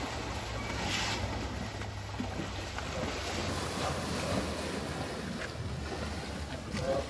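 Young Asian elephants wading and splashing through shallow muddy water, with wind rumbling on the microphone.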